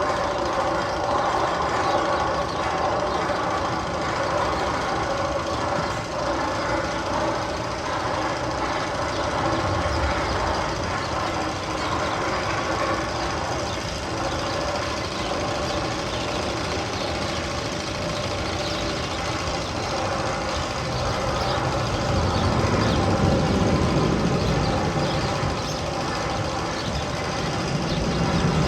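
One of the Magnum XL-200 tunnel sound effects, played over speakers: a steady, machine-like drone of several held tones, with a low rumble swelling about two-thirds of the way in and again at the end.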